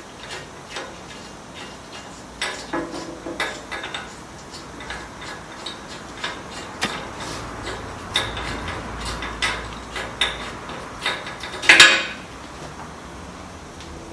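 Hand tools and loose metal fasteners clinking and clanking during motorcycle disassembly: irregular metallic taps and rattles, with one louder clank near the end.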